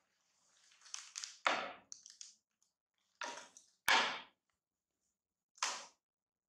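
Plastic snack wrapper crinkling in several short bursts as it is handled, with a sharp tap about four seconds in.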